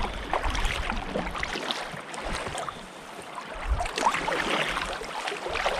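Sea kayak paddled through choppy water: irregular splashes and water slapping around the hull, with wind gusting on the microphone near the start and again past the middle.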